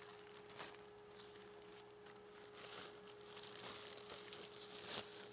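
Faint, scattered rustling of a white plastic wrapping being pulled off an in-cab touchscreen monitor, over a steady faint hum.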